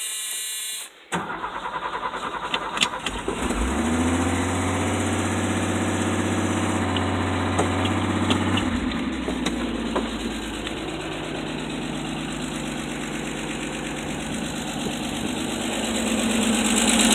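1984 Ford F250 engine cranking for a couple of seconds, catching about three and a half seconds in, then running at a fast idle that drops to a steady lower idle about nine seconds in. It starts now that the corroded battery disconnect cable and clamp have been cleaned.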